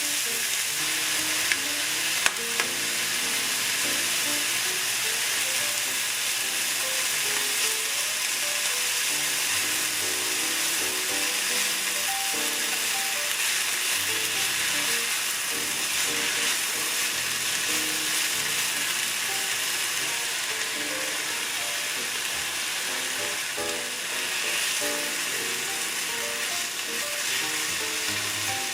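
Food frying in a pan with a steady sizzle. There are a couple of sharp clicks about two seconds in.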